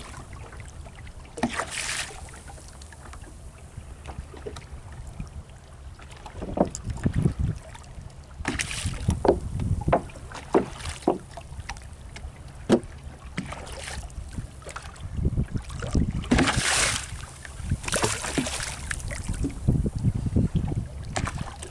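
Wind gusting on the microphone and water slapping against the hull of a small wooden fishing boat at sea, over a low steady hum, with scattered short knocks and splashes.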